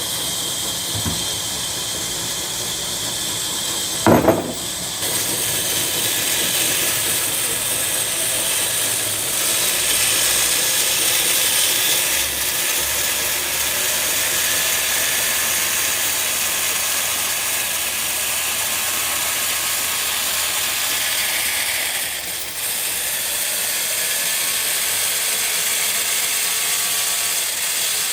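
Machinery running with a steady hiss-like mechanical noise, a sharp loud knock about four seconds in, and a brief change in the sound about 22 seconds in.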